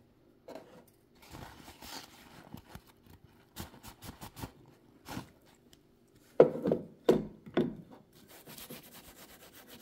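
Paper towel rubbing and scrubbing grime off a vintage Kenmore sewing machine's body in short, uneven strokes. Three louder knocks come about two-thirds of the way through.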